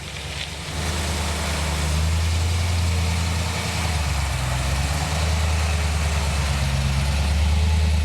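Drag car's engine running at low speed, a steady low drone that gets louder about a second in.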